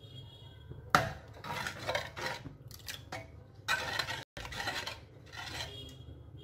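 Metal ladle stirring spinach dal in a metal pot, scraping and clinking against the sides in uneven strokes that start about a second in.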